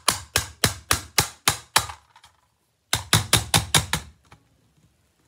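Screwdriver struck repeatedly against a tin toy car's metal body: sharp clanks about three a second, a pause of about a second, then a quicker run of strikes that stops about four seconds in.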